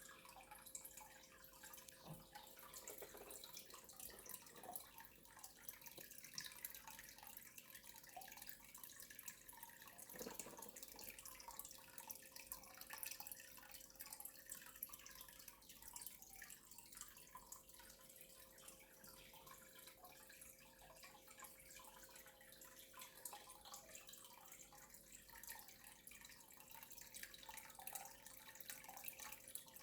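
Faint running and dripping water, with a faint steady hum underneath.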